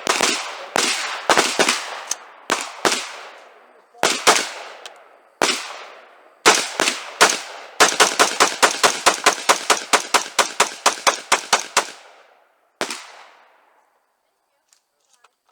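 Gunshots. Single shots come at uneven intervals, then a fast string of about twenty shots at roughly five a second, then one last shot. Each shot leaves an echoing tail.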